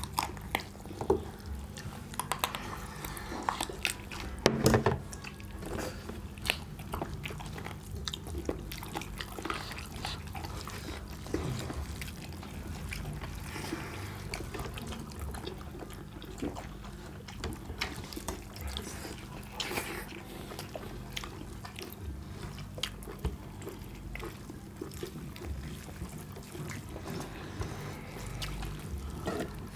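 Close-up eating sounds of curry and rice: irregular wet clicks, squelches and smacks from the food being mixed and chewed, over a steady low hum.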